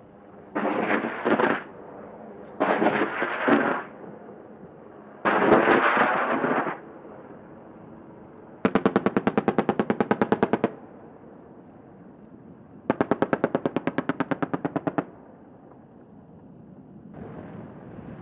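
An AH-64 Apache's 30 mm chain gun firing two bursts of about two seconds each, at roughly ten rounds a second. Before them come three shorter rushing blasts.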